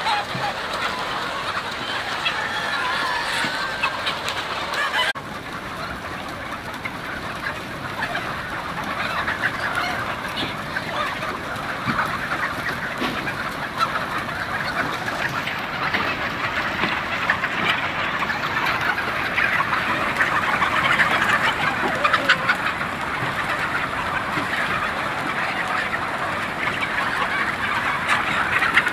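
A large flock of chickens clucking all at once: a dense, unbroken chatter of many overlapping calls.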